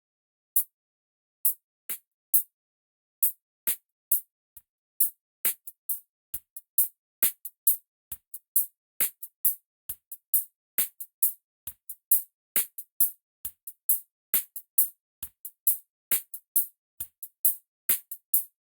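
Hi-hat hits isolated from a drum loop by EQ and a noise gate, playing back as short crisp ticks in a sixteenth-note pattern, with silence cut in between. A little kick and snare still leaks through on some hits.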